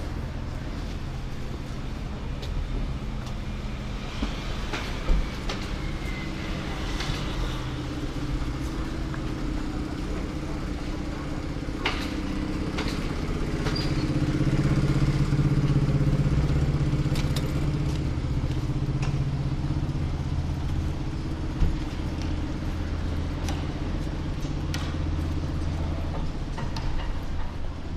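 Street ambience with a motor vehicle engine running steadily. It swells to its loudest about halfway through, then eases off, and a couple of sharp knocks sound over it.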